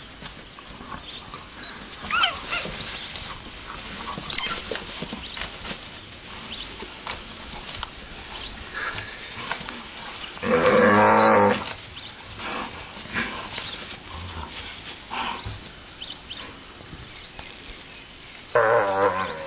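An antelope under attack by African wild dogs gives a loud, low distress bellow lasting about a second, halfway through, and starts another near the end. Short high-pitched chirps and squeals, typical of the wild dogs' twittering, come in between.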